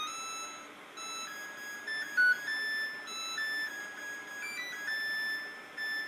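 Samsung Waterwall 9550 dishwasher's end-of-cycle melody: a long electronic tune of beeped notes stepping up and down in pitch, signalling that the wash cycle has finished.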